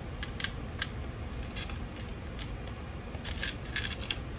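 Small packaging being handled: light crinkling and rustling, a scatter of short crackles with a denser run near the end.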